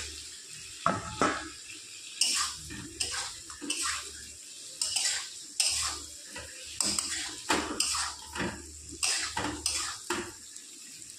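Metal spatula scraping and clinking against a metal kadhai, in irregular strokes, as fried boiled eggs are stirred into thick masala.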